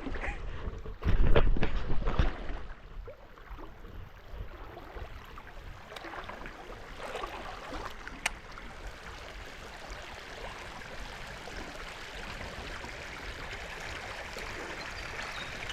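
Creek water running steadily, growing a little louder toward the end. About a second in there is a short, loud, low rumble.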